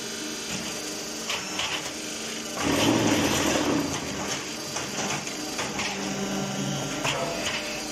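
Concrete block-making machine running with a steady mechanical hum. It grows louder for about a second around three seconds in, with a few short metallic knocks.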